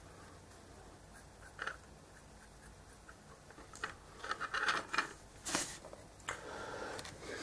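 Small handling sounds on a work table: faint ticks at first, then a cluster of scratchy rustles from about halfway, a sharp knock about two-thirds of the way in, and more rustling near the end.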